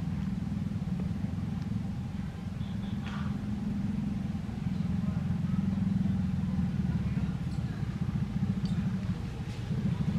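A steady, low engine hum with a fine, even pulse.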